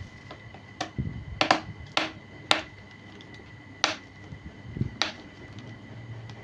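A handful of sharp clicks and knocks from handling a plastic laptop and tools on a work surface as its casing is about to be taken apart, with a couple of softer low thuds, under a faint steady high whine.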